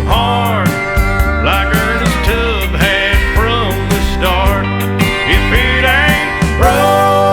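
Country song playing, an instrumental passage: a lead line bending up and down in pitch over steady bass and drums.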